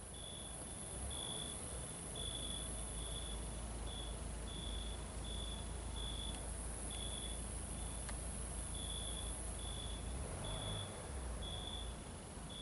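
A cricket chirping on summer night: short, high, pure-toned chirps, about one and a half a second at a slightly uneven pace, over a low steady rumble.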